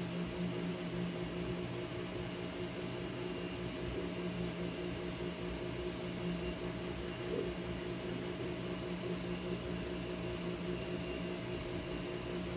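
Elegoo Neptune 2S 3D printer running a print: its stepper motors and cooling fans make a steady mechanical hum with several held tones, one of them pulsing evenly.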